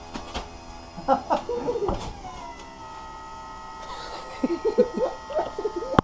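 Electric tilt-and-trim motor of a Yamaha V-Max 150 outboard running with a steady whine as the motor is run down, along with a few clicks and a sharp click near the end.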